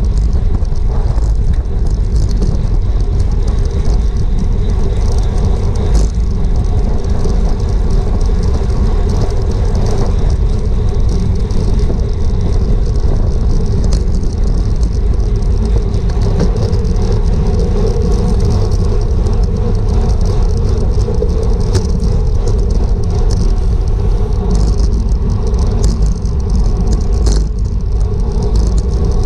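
Wind rushing over a GoPro's microphone on a road bike at racing speed, a steady loud rumble with road and bike noise underneath and a few sharp clicks.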